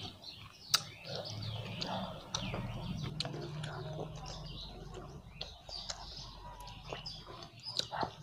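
Fingers scraping and gathering rice on a plate while eating by hand, with a sharp click about a second in and a couple more near the end, over birds chirping in the background.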